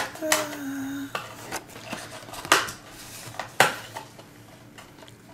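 Sharp metallic clinks and taps, three of them spread out, from handling a metal storage tin and small plastic figures.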